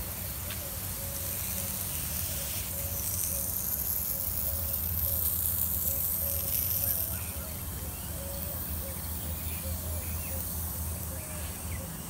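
Pop-up lawn sprinklers hissing as they spray water, growing louder in the middle and then fading. Under it there is a steady low rumble and faint, repeated bird chirps.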